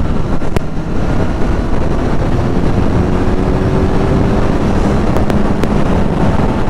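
Motorcycle being ridden at speed: heavy wind buffeting the microphone over a steady engine hum, the engine pitch creeping up slightly through the middle.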